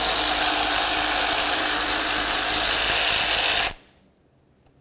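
Power ratchet running steadily as it spins out a throttle body mounting bolt, stopping abruptly about three and a half seconds in.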